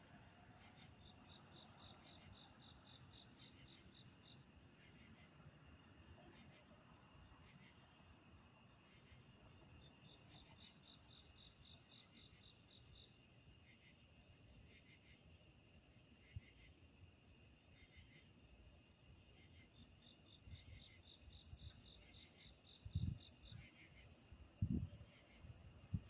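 Night insects such as crickets calling: a steady high trill with groups of rapid, even chirps every few seconds. A few low thumps break in near the end.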